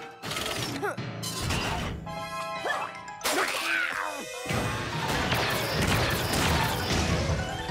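Cartoon action sound effects over background music: a series of crashes and metal bangs, then a long loud blast from about four and a half seconds in as an energy beam hits the ground.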